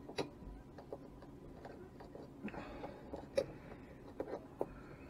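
Light metallic clicks and ticks of pliers working a steel split ring and treble hook onto a bottle-cap lure: about ten irregular clicks, the sharpest about three and a half seconds in.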